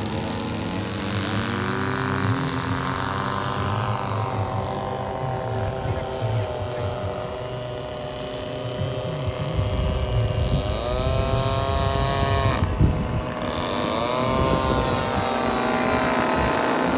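Several radio-control model airplane engines running at once, their pitch sliding up and down as the planes fly by, with one close pass about twelve seconds in.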